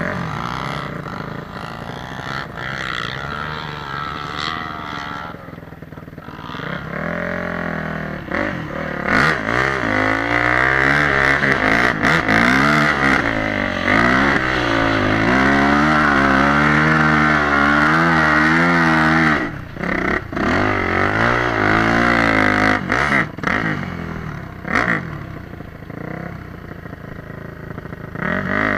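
Motorcycle engine revving up and down, its pitch rising and falling again and again. It is quieter for the first several seconds, then louder through the middle, with a brief dip before it rises and falls again.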